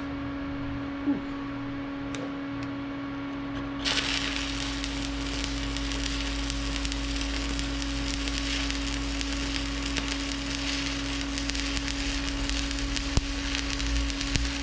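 A stick welding (SMAW) arc striking about four seconds in and then crackling and sizzling steadily as a bead is laid, over a steady machine hum.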